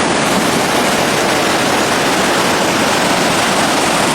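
Loud, steady rush of heavy rain and running floodwater, starting abruptly.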